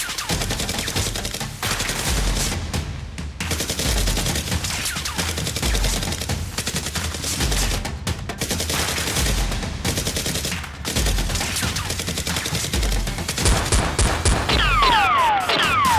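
Rapid, continuous gunfire sound effects, like automatic weapons firing, over background music with a deep beat about every second and a half. Near the end, several falling whistling tones come in.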